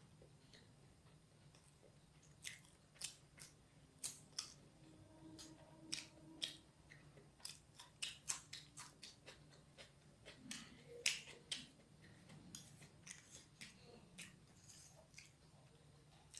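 Chewing chowmein noodles close to the microphone: irregular sharp wet mouth clicks and smacks, coming in quick clusters in places, with a few taps of a fork on the plate.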